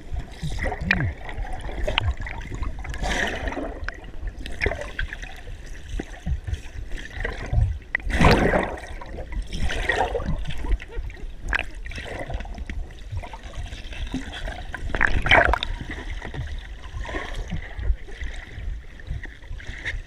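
Water gurgling, sloshing and splashing, heard partly underwater, with louder splashes about 8 and 15 seconds in.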